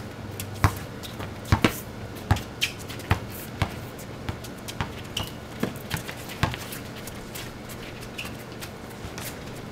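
Basketball dribbled on a concrete driveway: a string of sharp, irregular bounces, most of them in the first six seconds and only a few after.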